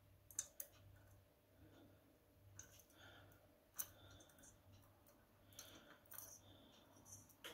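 Near silence with a low steady hum and several faint, sharp clicks scattered through it, the loudest about half a second in and near four seconds in.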